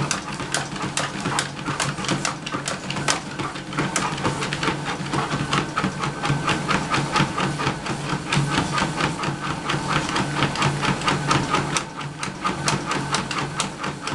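Motorised treadmill running with a steady hum while a Labrador trots on the moving belt, its paws striking about four times a second in a quick, even rhythm.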